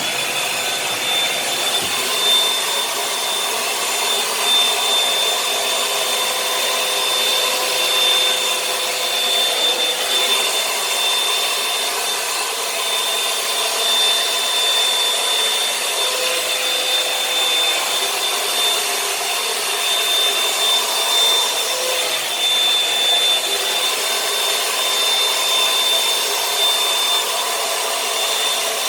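Revlon One-Step hair dryer and volumizer switched on and running steadily, its fan blowing with a constant high-pitched whine over the rush of air.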